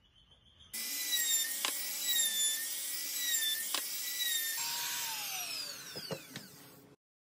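Ryobi trim router running with a high whine that wavers as the bit cuts along a pine board, then switched off, its whine falling in pitch as the motor winds down.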